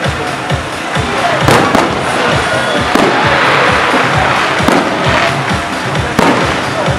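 Dense crackling firecracker pops and bangs mixed with loud, beat-driven music from a procession cart's sound system.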